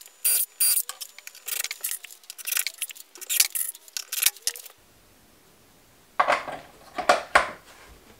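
Quick, irregular light metallic clinks and rattles as a battery master isolation switch is screwed onto a plywood panel with a small cordless drill-driver. After a short pause, a few heavier knocks of handling the plywood follow near the end.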